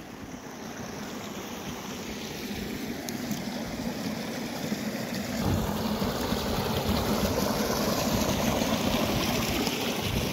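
Floodwater rushing through a breach in a village tank's earthen embankment and across the fields: a steady rushing of water that grows louder about five and a half seconds in.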